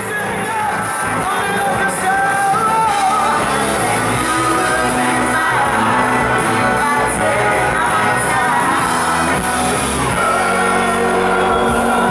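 Live rock and soul band playing with electric guitars and drums, a woman singing over it, swelling in over the first couple of seconds.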